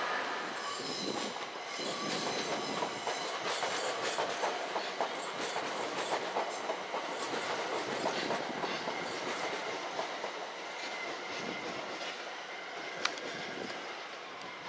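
London Overground Class 378 electric multiple unit rolling slowly into the platform, its wheels clicking and clattering over points and rail joints, with a faint high wheel squeal in the first few seconds and one sharp click near the end.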